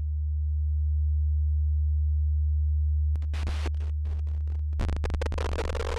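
Synthesized electronic sound of a laser show: a deep, steady sine tone, joined about three seconds in by fast crackling clicks. Near the end these thicken into noisy crackle, and a higher buzzing tone with overtones sets in.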